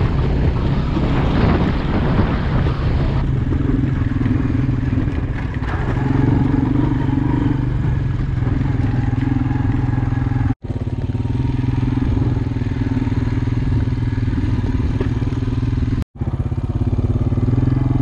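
Quad bike engine running steadily under way over rough paddock ground, with a rushing noise over it for the first few seconds.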